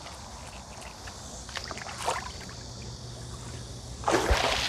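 Water sloshing and splashing, with a few light splashes and a louder splash about four seconds in.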